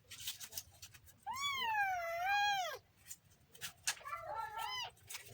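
Kitten meowing: one long wavering meow starting about a second in, then a shorter, broken call near the end, with a few short clicks between.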